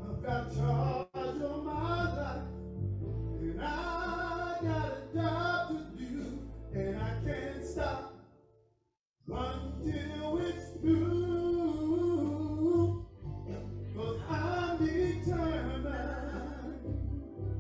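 Worship song in church: a singer's voice over sustained low instrumental accompaniment. The sound fades and cuts out completely for about a second about halfway through, then the singing resumes.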